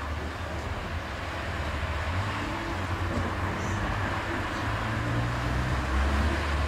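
City street traffic: cars driving past, a steady low rumble with road noise that grows a little louder near the end as a car comes close.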